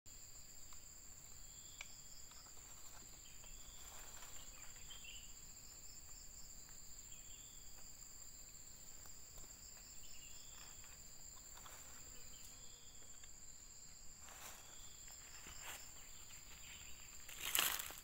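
A steady high-pitched insect drone, like crickets or cicadas, with faint short chirps now and then. Near the end there is a louder rustle, like footsteps in dry leaves.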